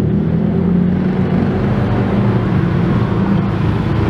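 A wooden ulekan pestle grinding and scraping peanut sauce for ketoprak against a ceramic plate, over a steady low motor hum that is the loudest sound throughout.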